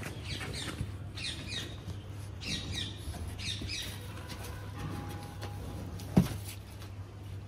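Small birds chirping in short, falling chirps that come in little groups, over a steady low hum. A single dull thump about six seconds in.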